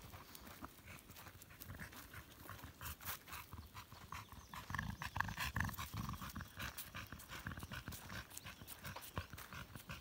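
An American Staffordshire Terrier panting over steady footsteps on a dirt track, the panting and steps louder for a couple of seconds about halfway through.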